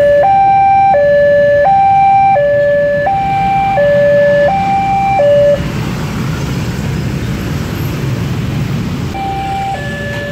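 Railway level-crossing warning alarm sounding a loud two-note electronic tone, high and low notes alternating steadily, which stops about five and a half seconds in as the train clears the crossing. Motorcycle engines then take over as a low rumble, and the two-note crossing alarm starts again near the end.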